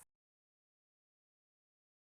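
Silence: the audio cuts off abruptly at the very start, leaving dead digital silence.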